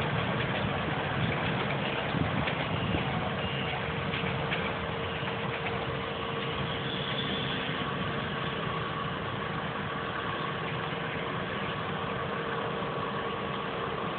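Freight train rolling past close by: a steady rumble of wheels on rails with a steady tone running through it, easing slightly about five seconds in.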